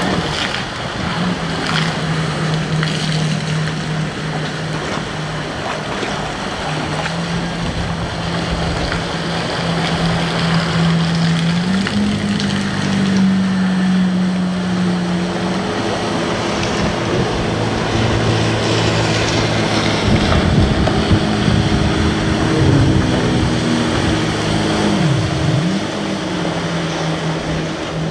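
Jet ski engine running under way over a hiss of spray and wash. Its pitch steps up about twelve seconds in. About three seconds before the end it drops sharply and comes straight back up as the throttle is eased and opened again.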